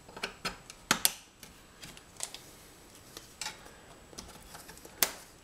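Plastic busbar holders and a brass busbar being handled and set into place on a metal DIN-rail frame: an irregular scatter of sharp clicks and light knocks, the loudest about a second in and near the end.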